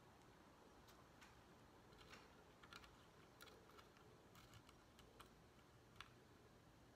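Faint, scattered clicks and scrapes of a stick prying at a crystal-crusted hedgehog figure stuck fast in its cup of crystal-growing solution.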